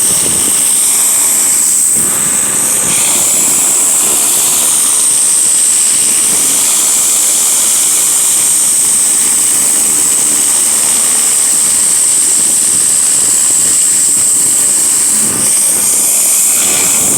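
Pressure washer running and spraying: a loud, steady high-pitched hiss of the water jet over the machine's motor, dipping briefly twice.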